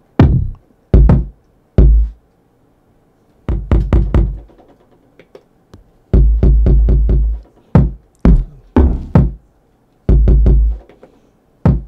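Bass one-shot samples previewed one after another on an Akai MPC Live II sampler: separate deep bass hits with a sharp attack and silent gaps between them, some cut short, a couple ringing out for about a second.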